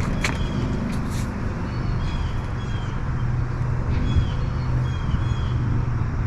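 A steady low hum with a few short bird chirps scattered through it, and a couple of light clicks about a second in.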